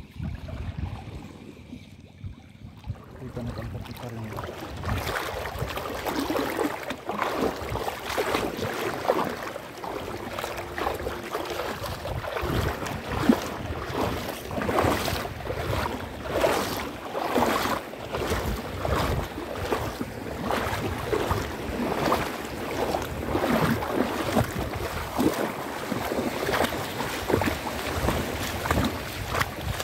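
Footsteps wading and sloshing through shallow seawater and wet sand, a steady series of splashy steps at about one a second that starts about three seconds in. Wind rumbles on the microphone throughout.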